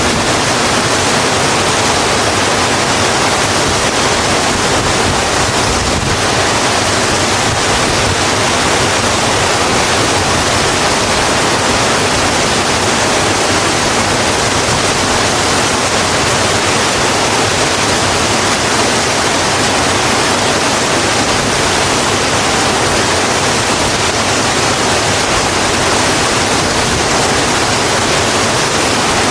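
Steady rain falling on a road: an even, unbroken hiss with no single drops, thunder or music standing out.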